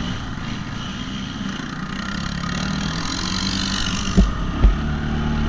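ATV engine running, heard from a camera mounted on the quad, with two sharp knocks about half a second apart near the end, after which the engine note grows louder.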